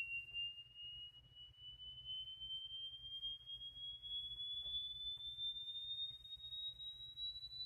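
Sine-wave test sweep played through the RCA STS-1230 loudspeaker, a single pure tone gliding slowly upward from about 2,700 Hz to about 3,700 Hz. It is picked up by a microphone sitting on the cabinet's back panel, to check for cabinet resonance after lining the enclosure with sound deadener pads.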